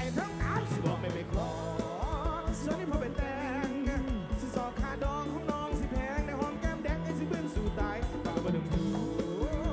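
Live band playing a song through a large concert PA: a steady drum beat under guitars, with a male lead singer's wavering vocal line.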